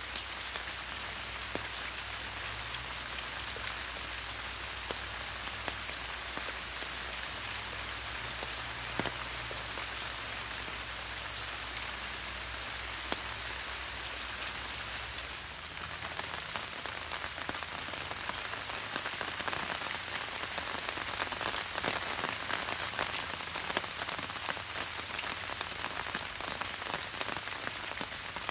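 Steady rain falling and pattering on surfaces, with individual drops ticking sharply throughout. A low hum under the rain stops about halfway through, and the rain sounds a little louder after that.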